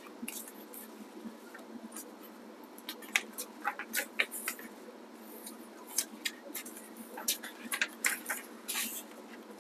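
Paper instruction sheets rustling and crinkling as they are unfolded and leafed through by hand, in scattered short rustles with a longer one near the end.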